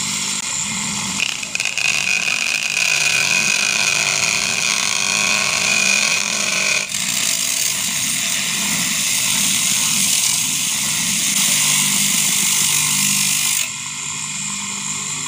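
A homemade cutter, a water-pump electric motor driving a drill chuck with a small cutting disc, runs loudly with a harsh high grinding hiss as a piece is held against the spinning disc. A steady high whine sounds for the first several seconds, and the sound eases near the end.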